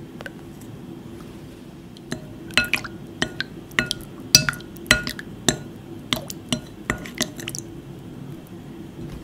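A plastic spoon stirring liquid in a glass bowl, clinking against the glass about a dozen times, each clink ringing briefly. The clinks run from about two seconds in to near the end, over a steady low hum.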